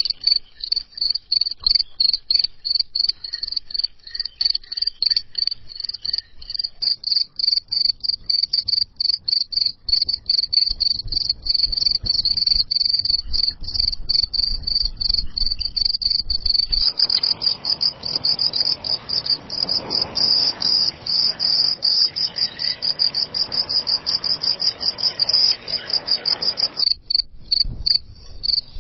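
Crickets chirping: a fast, even run of high-pitched chirps. A little past halfway a faint hiss joins underneath and stops again shortly before the end.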